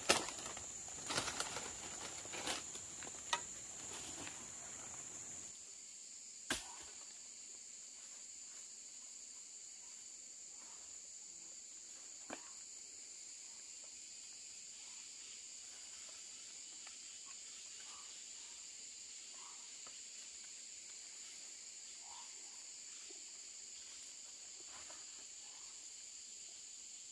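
Steady, high-pitched drone of forest insects. Rustling and a few sharp clicks sound over it in the first five seconds, and there is one more sharp click about a second later.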